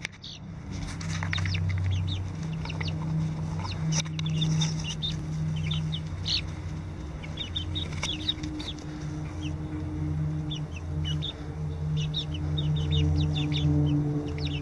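Five-week-old chicks peeping and chirping: many short, high calls scattered throughout. Under them runs a steady low hum.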